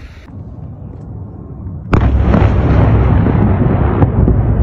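An explosion during a missile attack on a city goes off suddenly and loudly about two seconds in. Heavy, low rumbling follows and carries on, broken by a few short sharp cracks.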